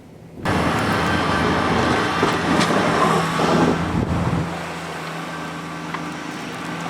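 Heavy-duty snow plow truck passing close by: a steady low engine drone with a rushing noise over it. It comes in suddenly about half a second in and eases off about four seconds in.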